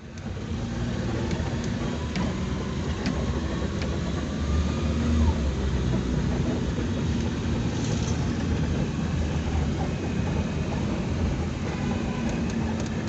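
Steady low rumble of a running vehicle engine, with a few faint clicks and knocks over it.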